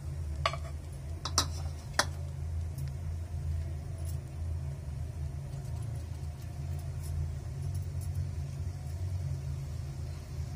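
A kadai of hot oil on a gas stove, with a steady low rumble underneath. Three sharp metallic clinks come in the first two seconds. Faint scattered crackles follow as a strip of shankarpali dough is lowered into the oil to fry.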